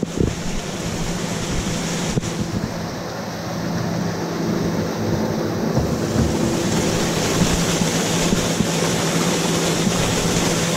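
Grain augers running, carrying wheat from a silo into a tipper trailer: a steady motor hum under the hiss of pouring grain. The hiss grows brighter about halfway through.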